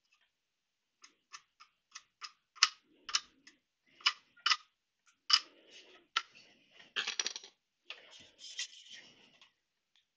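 Irregular sharp clicks and taps of a screwdriver and brush working against a battery pack's circuit board and plastic case, with short scraping noises about two-thirds of the way through.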